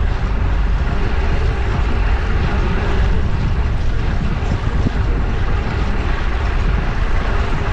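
Steady wind rush on the microphone of a GoPro strapped to a cyclist riding through city streets, heaviest in the low end.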